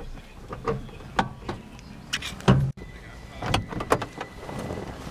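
Column-mounted shift lever of a 1950 Chrysler Crown Imperial's manual transmission being worked through its gates: a series of mechanical clicks and clunks, the loudest about two and a half seconds in. Then a few more clicks as the chrome interior door handle is worked.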